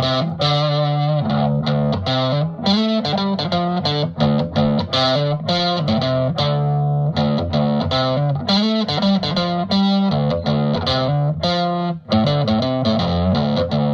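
Intro music led by an electric guitar with distortion, playing rhythmic chords. It stops abruptly at the end.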